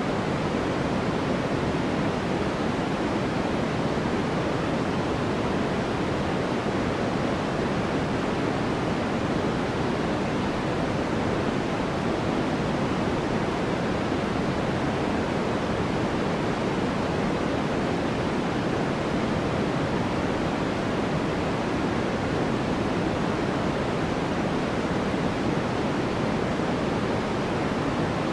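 Steady, unchanging generated noise of the sort played for sleep (sold as white noise). It is an even hiss weighted toward the lower pitches, closer to pink noise.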